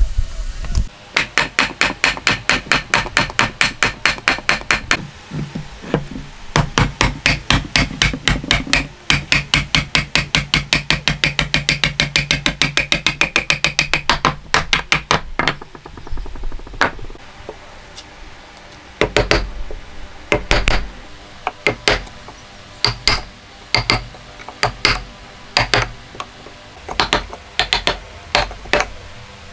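Hand mallet striking a chisel in hardwood, cutting a joint: a fast, even run of blows, about four or five a second, for roughly the first half, then slower, spaced-out strikes.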